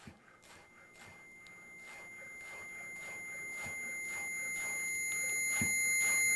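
A steady high-pitched electronic tone that starts about half a second in and swells steadily louder. Under it, a chef's knife chops chives on a bamboo cutting board in soft, even chops about four a second.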